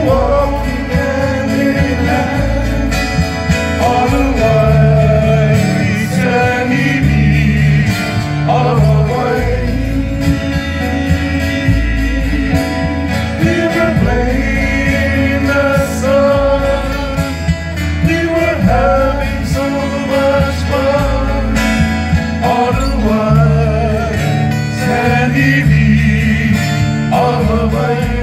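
Live Hawaiian music: men singing into microphones over strummed acoustic guitars and a bass guitar, the bass moving in held low notes under the sung melody.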